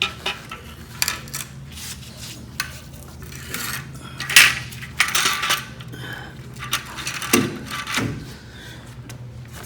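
Metal being handled: irregular light metallic clinks and knocks, a dozen or so, the loudest about four and a half seconds in, over a steady low hum.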